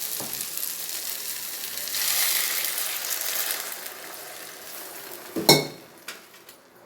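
Water poured into a pan of hot oil with sautéed onion and tomato, sizzling hard; the sizzle swells about two seconds in and then dies down. Near the end comes one sharp metallic clink with a brief ring, a metal vessel or spoon striking the pan.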